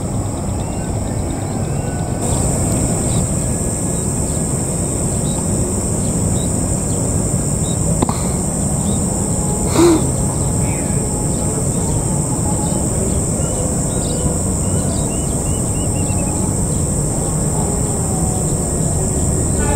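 Outdoor ambience: a steady low rumble under a constant high insect drone, with small bird chirps scattered throughout. A short sharp knock comes about ten seconds in.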